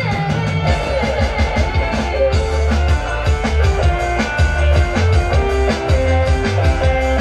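Kecimol street band playing: barrel drums beating a steady rhythm under a sustained, amplified melody and heavy bass.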